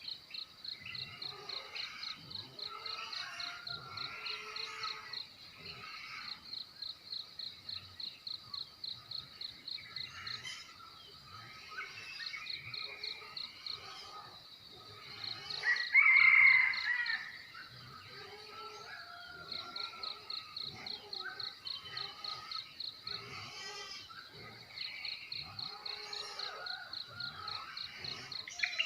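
Rural morning chorus: a cricket's rapid pulsed chirping that stops and starts again, with birds calling and chirping all through. One louder call lasting about a second and a half comes a little past halfway.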